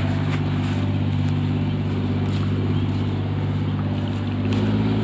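Tractor's diesel engine running steadily at an even speed, a low continuous drone.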